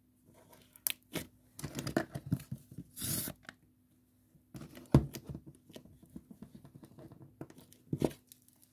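Hands squeezing and stretching soft slime as lotion is worked into it, making irregular sticky crackling and tearing sounds. There is a short hiss about three seconds in and a sharp knock about five seconds in.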